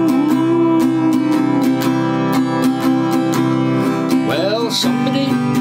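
Acoustic guitar strummed in a steady rhythm, about four to five strums a second, in an instrumental break between sung verses.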